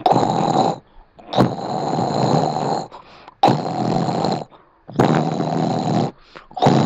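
A person snoring loudly: a run of long snores, each about a second long, repeating about every second and a half.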